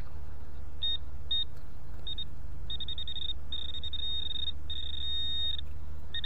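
Metal detector giving a series of high beeps over a metal target: a few short beeps, then a quick stutter, then longer held tones. A steady low rumble runs underneath.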